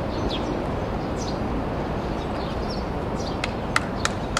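Steady outdoor noise in an open-air baseball stadium, with several short, high, falling bird chirps and a few sharp clicks close together near the end.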